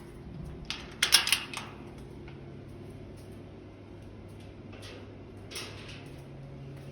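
A quick rattling cluster of sharp knocks about a second in, and a shorter one a few seconds later, over a steady low hum.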